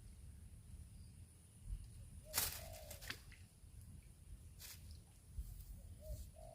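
A dove cooing faintly, with short low coos about two seconds in and again near the end. A sharp click comes about two seconds in, with a few fainter clicks after it.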